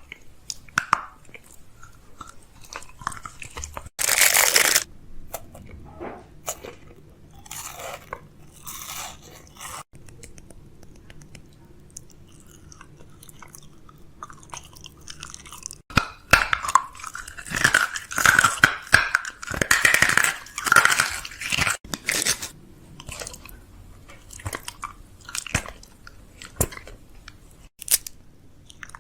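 Crunchy chewing and biting, irregular crackling strokes with a loud crunch about four seconds in and a busier stretch past the middle carrying a wavering, whine-like tone.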